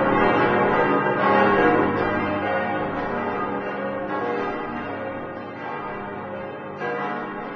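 Bells ringing in a peal: many overlapping strikes with long ringing tones, fading away over the last few seconds.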